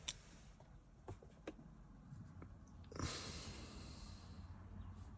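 A few faint clicks, then a soft hiss from about three seconds in, as the push-button start of a no-start GMC Yukon is tried; the engine does not crank.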